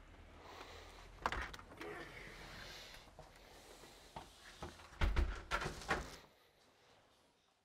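A front door being handled: a sharp latch click about a second in, then a cluster of knocks and dull thuds around five seconds in.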